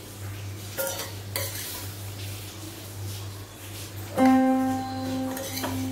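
A metal spoon clinking and scraping against a steel pot and ceramic plate while steamed vegetables are served out, with sharp clinks about a second in, over a low steady hum. Background guitar music comes in about four seconds in.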